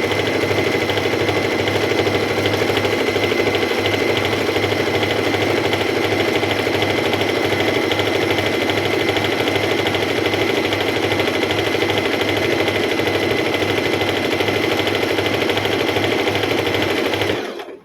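Singer M3505 electric sewing machine running steadily at speed, stitching a decorative scallop pattern, with a fast even needle rhythm that stops abruptly near the end.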